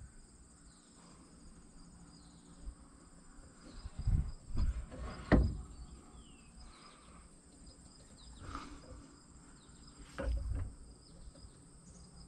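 Insects, crickets among them, trilling steadily in the background, with a few dull knocks and thumps about four to five seconds in and again near ten seconds, the loudest a little past five seconds.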